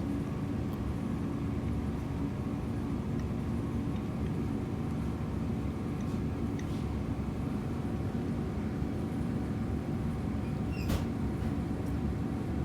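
Steady low mechanical hum of restaurant equipment, with a faint constant tone over it and a single sharp click about eleven seconds in.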